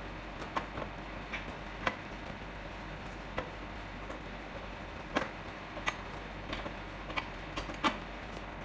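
Light, irregular taps and knocks of a thin MDF strip and a pencil being handled against a square metal rod, about a dozen in all, the loudest near the end, over steady background noise.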